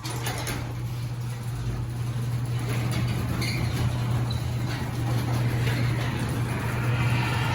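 Craftsman half-horsepower chain-drive garage door opener running as it opens the door. It switches on abruptly, then gives a steady motor hum under the broad noise of the chain and door travelling.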